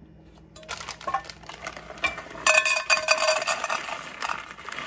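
Chocolate chips poured from a plastic bag into a metal measuring cup, rattling and clinking against the metal, with the bag crinkling. It grows loudest about halfway in as the chips pour fastest.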